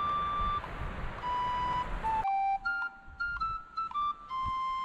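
Music: a simple melody of clean, flute-like held notes stepping from pitch to pitch. Under it, a noisy rumble cuts off suddenly a little over two seconds in.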